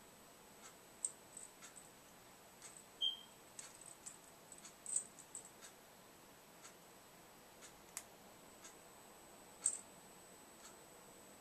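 Faint, irregular light clicks and taps from a parrotlet moving about its wire cage, a few louder ones near 1, 3, 5 and 10 seconds in. A single short, high peep about three seconds in.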